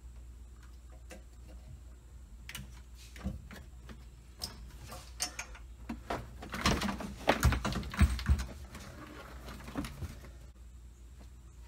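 Clicks, knocks and rattles of plastic dashboard trim and clips being handled and pulled in a gutted Mazda RX-8 dash. The knocks are scattered at first and bunch up, louder, around the middle, over a steady low hum.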